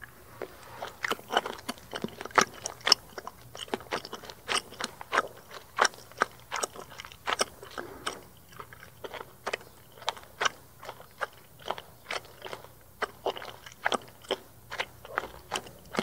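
Chewing gum chewed close to the microphone: wet smacking and clicking of the mouth and gum, about two or three uneven smacks a second.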